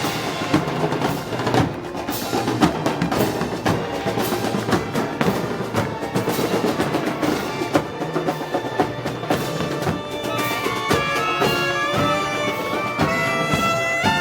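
Festival band music: snare and bass drums play a steady march beat, and brass comes in with sustained notes about ten seconds in.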